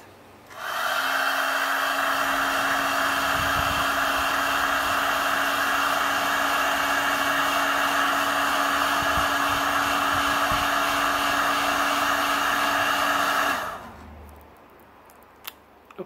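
Handheld heat gun switched on about half a second in, its fan and air blast running with a steady hum, then switched off near the end and winding down. A short click follows shortly after.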